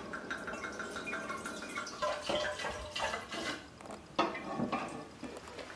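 Red wine poured from a bottle into a glass decanter: first a steady stream whose pitch rises slightly as the decanter fills, then about two seconds in it breaks into irregular glugs and splashes.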